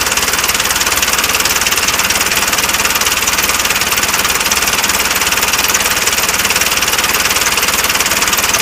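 Tractor engine running steadily with a fast, even chugging knock.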